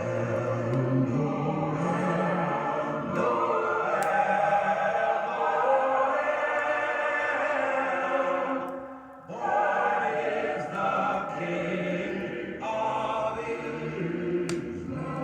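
Choir singing a slow classical piece in long held notes, with a short break about nine seconds in.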